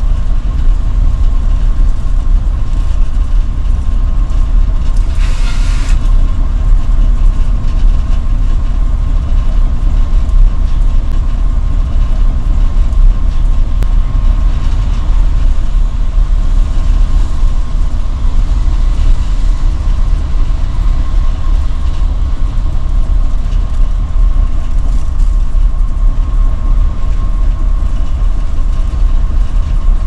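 Mercedes-Benz Citaro city bus cruising at motorway speed: a steady, heavy low rumble of its 7.7-litre diesel engine and tyres on the road, with a faint steady whine. A short hiss lasts about a second, about five seconds in.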